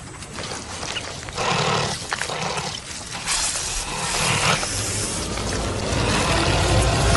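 A honey badger chasing through dry brush: noisy rustling and scuffling bursts with animal growling. A low rumbling score swells in over the last couple of seconds.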